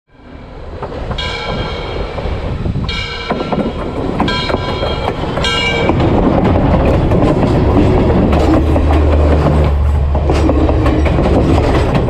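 Train horn blowing four times as the train approaches, followed by the train running directly overhead: a loud, deep rumble with rapid clicking of wheels over the rails.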